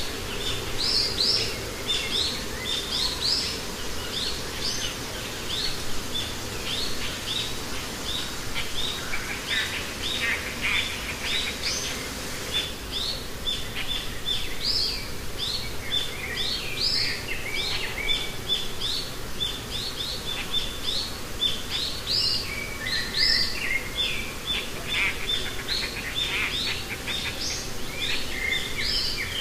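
Many birds chirping in a busy chorus of short, quick, high calls that overlap one another.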